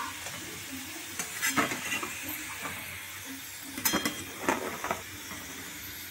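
Palm-fruit fritters deep-frying in hot oil in a steel karahi: a steady sizzle, with a metal spatula clinking and scraping against the pan several times.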